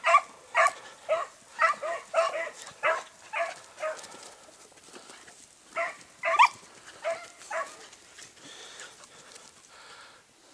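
Basset Fauve de Bretagne scent hounds baying in short calls, about two a second, breaking off about four seconds in and taking up again for a few more calls near six seconds: hounds giving tongue while hunting a rabbit.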